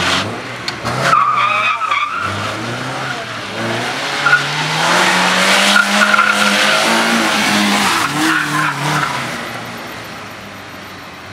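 A car's engine revving hard and dropping back between turns while its tyres squeal and skid through the slides; the revs climb to their highest about six seconds in, then fall, and the sound fades as the car moves away near the end.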